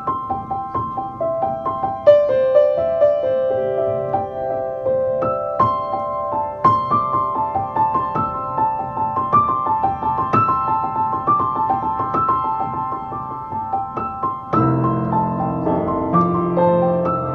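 Instrumental keyboard music: a flowing line of quick single notes, joined near the end by lower, fuller sustained notes.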